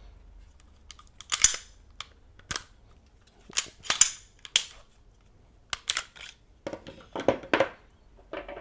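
Walther PDP 9mm pistol being field-stripped by hand: a string of sharp metallic clicks and snaps as the slide is worked and pulled off the frame. Near the end come duller knocks as the parts are set down on a wooden table.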